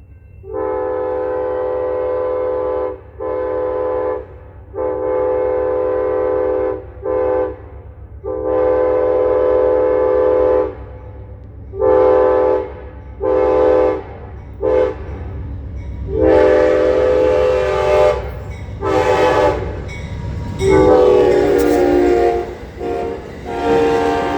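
An Amtrak passenger locomotive's multi-chime air horn sounding about a dozen blasts, long ones of two to three seconds mixed with short toots, in a playful pattern rather than the standard crossing signal. In the last third the rumble and clatter of the approaching train's engine and wheels build up under the horn.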